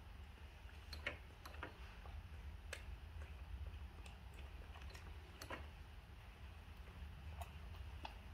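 Faint, irregularly spaced light clicks and taps, about seven or eight in all, over a steady low hum.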